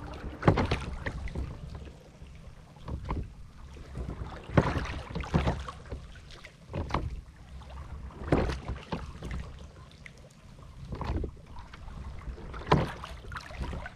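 Water splashing and gurgling along the hull of a small wooden boat moving through calm water, swelling in surges every couple of seconds, over a low rumble of wind on the microphone.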